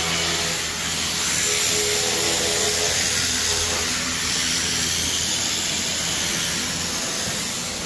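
Pressure washer running nearby: a steady hiss of high-pressure water spray with a constant low hum underneath.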